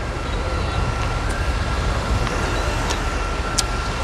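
Steady low rumble of wind buffeting the microphone outdoors, with a faint steady high whine underneath and a few small clicks.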